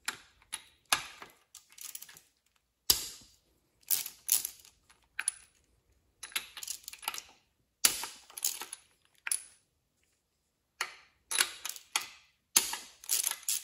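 Ratchet on a 13/16 spark-plug socket clicking in short runs with pauses between, as spark plugs are broken loose from an outboard's cylinder heads.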